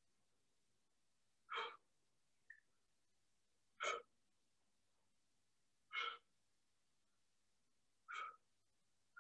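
A man's short, forceful exhales, four of them about two seconds apart, one with each effort of a one-arm overhead press with a weighted backpack.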